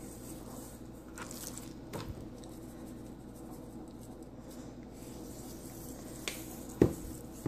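A hand patting and pressing seasoning into a raw steak on a plastic cutting board: a few faint taps, then one loud slapping thump near the end. A steady low hum runs underneath.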